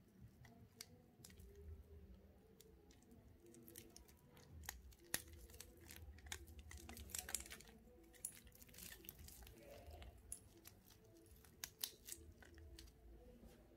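Faint crinkling of clear plastic protective film on a stainless-steel watch bracelet as it is handled, with scattered sharp clicks from the metal bracelet and its clasp.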